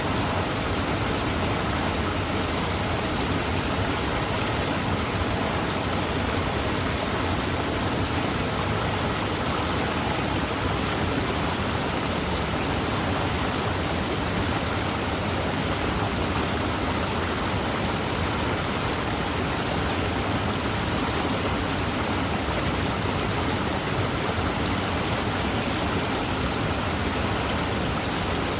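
Fast-moving river water running steadily: a dense, even rush with no breaks or changes.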